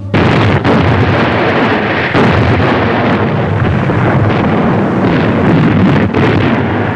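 Battle sound: a continuous loud din of explosions and artillery fire that starts abruptly, with a few sharper blasts standing out.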